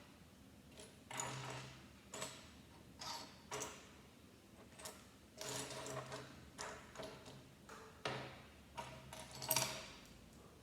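Plastic Lego pieces clicking and rattling as they are handled, searched through and pressed together, in a string of separate clicks and several short rummaging rattles.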